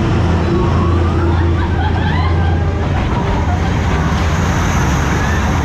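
Road traffic noise: a steady low engine drone with wavering higher tones over it, like horns or a siren.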